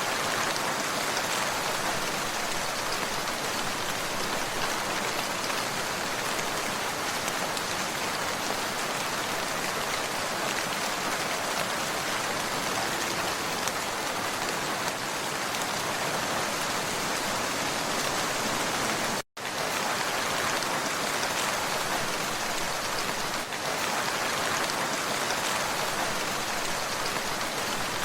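Steady rain falling, an even hiss of drops on a surface, broken once about two-thirds of the way through by a split-second drop to silence.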